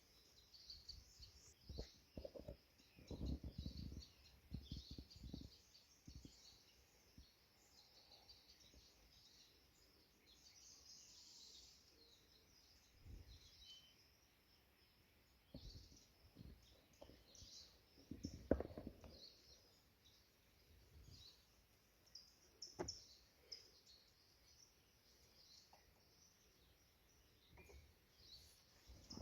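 Small birds chirping faintly and continually in a forest, with a few soft low bumps in the first few seconds and again about eighteen seconds in.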